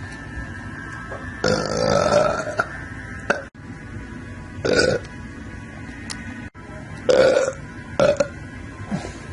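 A person belching loudly, four times. The first belch is long and drawn out, about a second; the other three are shorter.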